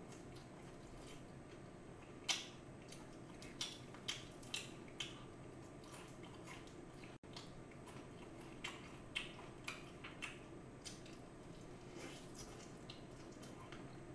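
Close-up eating of crisp fried chicken: a string of short crackles and crunches as the coated pieces are bitten into and pulled apart, the loudest about two seconds in, over a steady low room hum.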